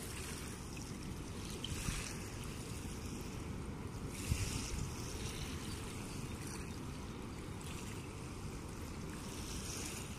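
Wind buffeting the microphone over small river waves lapping at the bank: a steady low rumble with a few brief hissing swells.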